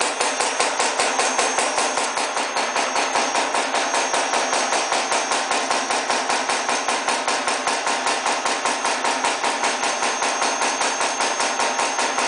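Silicon high-speed press cycling continuously, its ram striking in a rapid, even beat of about five strokes a second.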